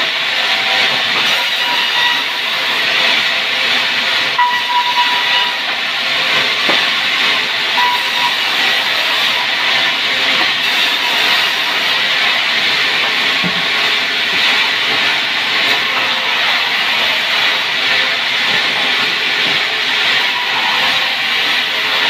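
Sawmill saw cutting sengon wood into beams: a loud, steady noise without a break, with a faint thin tone that comes and goes.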